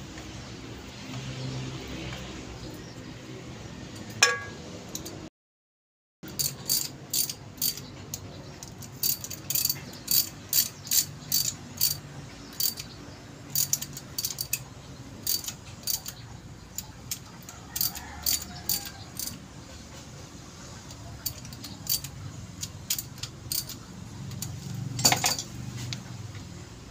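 Ratchet wrench clicking in short, uneven strokes, about two clicks a second, working the bolts of a steering box, with a louder metal knock about four seconds in and another near the end. The sound cuts out for about a second shortly before the clicking starts.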